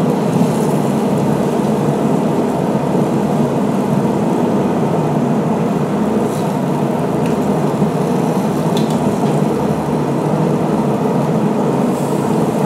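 A steady, loud rushing noise runs throughout. A few light clicks of metal tongs against the grill grate come through it about halfway and near the end, as meat and corn are turned.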